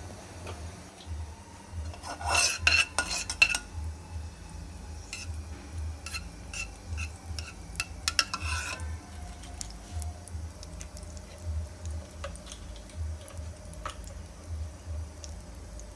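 Slotted steel spatula scraping and clinking against a kadhai while stirring melting ghee, in two spells of clatter, the louder one about two seconds in, with a few lighter taps after. A low pulsing hum runs underneath.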